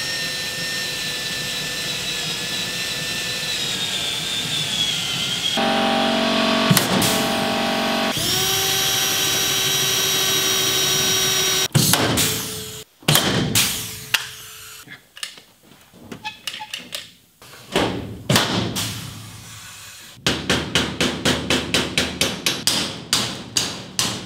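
Cordless drill boring rivet holes through a sheet-metal body panel, running in several long runs with its whine sagging slightly under load, then in shorter bursts. From about 20 seconds in, a quick, even knocking rhythm of about two beats a second takes over.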